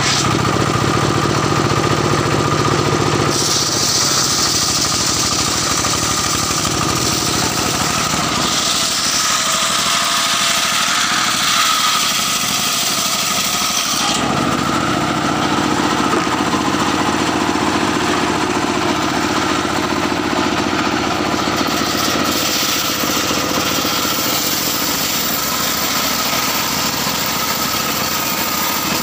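Engine-driven homemade circular saw bench running steadily, its large blade ripping old mahogany into beams. The sound changes about three seconds in, when a bright hiss sets in, and again about halfway through, when it gives way to a steadier, lower hum.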